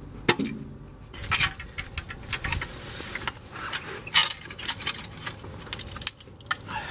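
Irregular metallic clinks and rattles of hand tools and steel suspension parts as the upper ball joint is undone and the front drive axle is worked loose.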